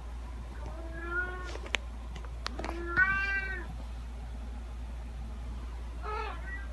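Domestic cat meowing, three separate meows: two clear ones in the first half and a fainter, shorter one near the end, with a few sharp clicks between the first two.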